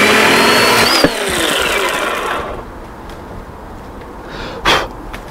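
Battery chainsaw with a freshly sharpened chain cutting through a log at full speed. About a second in the cut finishes with a sharp knock, and the motor winds down with a falling whine. A short knock near the end.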